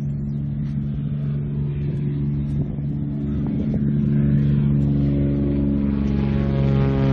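Propeller aircraft engine running, a steady droning hum that grows louder about four seconds in and rises slightly in pitch near the end.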